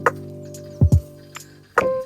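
Background music: a held chord that slowly fades, with short percussive hits and two low thumps about a second in.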